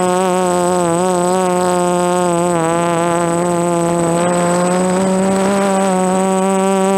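DJI F330 quadcopter's four electric motors and propellers buzzing steadily in flight, the pitch wavering slightly up and down as the throttle is corrected.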